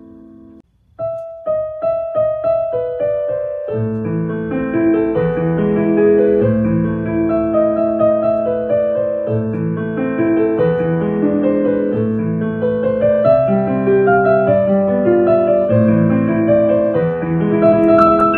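Background piano music. A held chord fades out, and after a brief break about a second in a new piano tune begins, single notes at first, then with fuller chords from about four seconds in.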